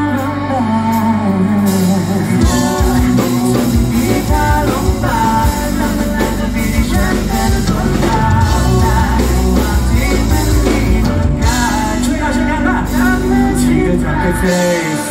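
Live rock band playing: a singer sings into a microphone over a drum kit and bass guitar, with the drums coming in about two and a half seconds in.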